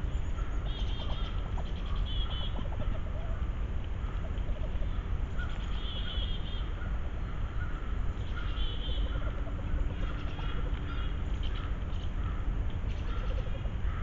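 Wood ducks calling: short, high calls repeat every second or few over a steady low rumble.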